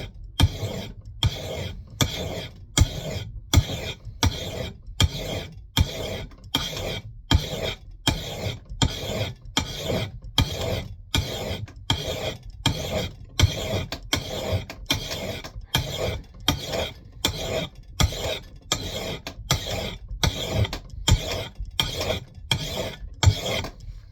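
Metal file rasping across an axe bit in steady, even strokes, about one and a half strokes a second, stopping at the very end. The file is working the edge of a Mann Edge Tool Company knot clipper down to a 15-degree chopping bevel.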